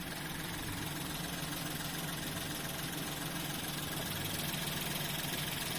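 Nissan Pixo's three-cylinder petrol engine idling steadily after its throttle body was cleaned, which the owner takes to have cured its unstable, hunting idle.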